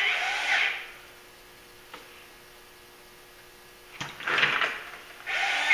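A hand grease gun being worked through a needle adapter: a single sharp click about two seconds in, then a short scraping burst about four seconds in, over a faint steady hum. A man's voice is heard at the start and end.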